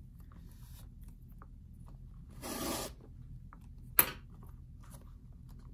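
Leather lace drawn through a lace hole in a Rawlings glove's web with a metal lacing needle: a rubbing pull lasting about half a second, midway through. About four seconds in comes a single sharp click, the loudest sound.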